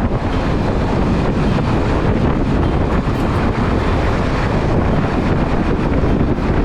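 Strong wind buffeting the microphone, a steady loud rush.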